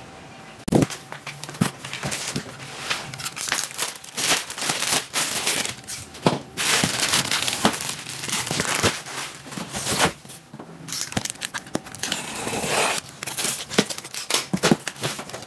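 Plastic bag crinkling and rustling as it is pulled off a cardboard box, with the cardboard flaps scraping and knocking as the box is opened. A steady crackle full of sharp clicks, with a short pause about two-thirds of the way in.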